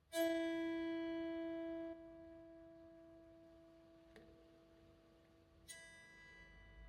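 Bell-like ringing tones: one struck at the start and slowly fading away, and a second, brighter strike near the end.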